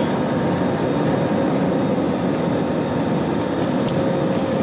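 Steady airliner cabin noise in flight: an even rush of engine and air flow with a faint steady hum running through it.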